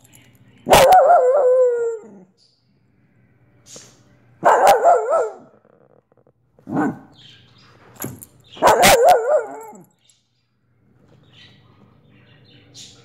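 Soft-coated wheaten terrier barking close to the microphone: three long, drawn-out barks of about a second each with a wavering pitch, and a shorter one between the second and third.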